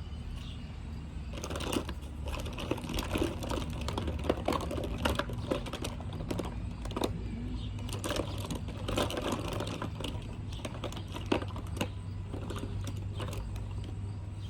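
Plastic lip gloss and lipstick tubes clicking and clattering against each other as they are handled, with many quick, irregular knocks.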